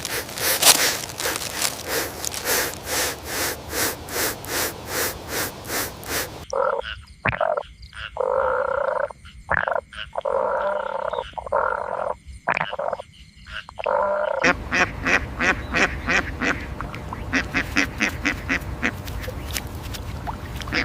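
Animal calls: a long run of evenly spaced pulsed calls, about three a second, give way for several seconds in the middle to a different, nasal-sounding call in short bursts with gaps, then the pulsed calls return.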